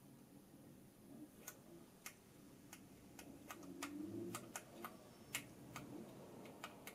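Faint, sharp clicks, about a dozen at an uneven pace of roughly two a second, from buttons being pressed on a small LED light remote control, with faint handling rustle.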